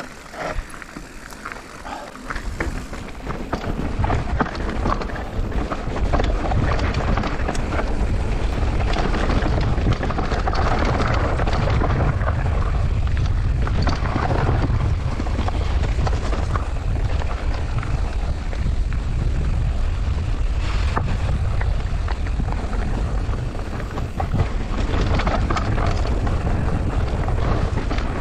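Wind buffeting the microphone as a mountain bike rides fast down a gravel dirt trail, with the tyres crunching and the bike rattling over the rough ground. The rumble of the wind sets in about two seconds in and stays heavy from then on.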